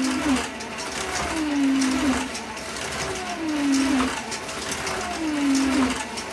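1:32 slot cars' small electric motors whining as they lap an oval track, the whine swelling and falling in pitch about every two seconds as the cars come round.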